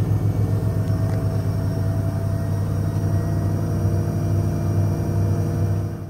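Electrolux EWF1141R9WB front-loading washing machine on its final spin cycle, drawing about 780 watts, running with a loud, steady hum.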